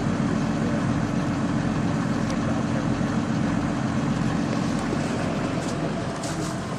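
Engine of a tracked over-snow vehicle idling with a steady low rumble.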